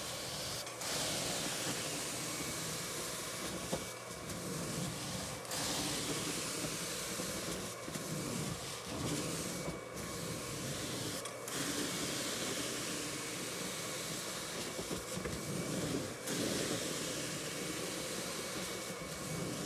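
Carpet extraction wand drawn across carpet, with a steady rushing hiss of spray and suction that breaks off briefly every few seconds.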